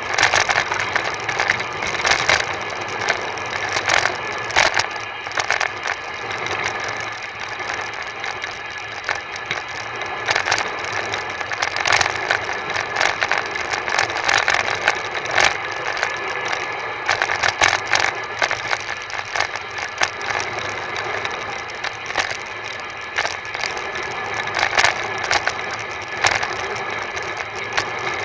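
Bicycle-mounted camera on a fast road descent: a steady rushing of road and air noise, with frequent sharp rattles and knocks as the mount shakes over the road surface.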